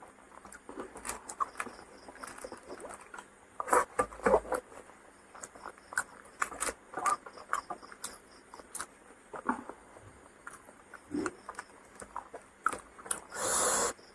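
Close-miked eating sounds of someone chewing a meal of fried fish and rice, heard as irregular mouth clicks and smacks, with a short breathy rush near the end.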